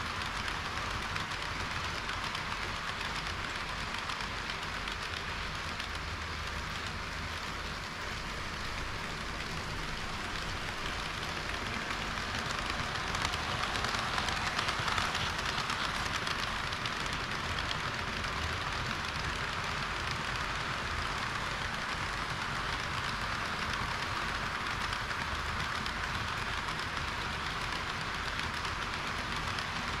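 Model trains running on a layout: a steady rushing clatter of small metal wheels rolling over the rails, louder for a few seconds about halfway through.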